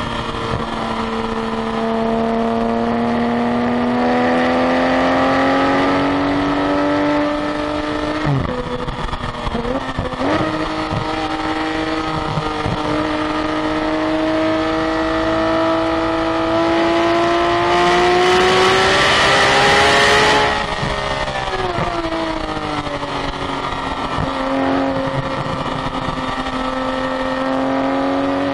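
Car engine pulling hard, its pitch climbing slowly through long stretches of rising revs. The pitch falls sharply about eight and ten seconds in and again about twenty seconds in. A hiss of wind or tyre noise swells for the two or three seconds before that last drop.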